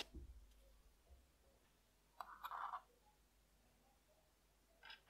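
Near silence broken by faint handling of small steel gun parts with tweezers: a sharp click at the very start, a brief scrape about two seconds in, and a few light clicks near the end.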